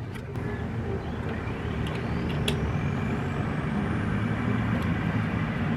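A motor vehicle's low engine rumble, growing steadily louder, with a thin whine that rises in pitch over a few seconds.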